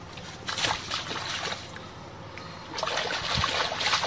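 Shallow muddy water splashing as hands grab and grope in it for catfish: a few separate splashes about half a second in, then more continuous splashing and sloshing from about three seconds in.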